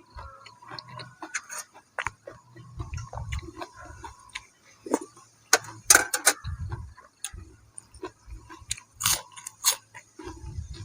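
A man chewing and crunching food close to the microphone, with a few loud, sharp crunches among steady chewing.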